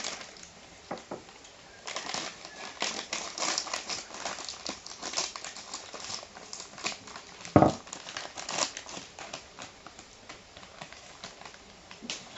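Crinkling and crackling of snack food and its packaging being handled and eaten, with irregular clicks and one louder thump about seven and a half seconds in.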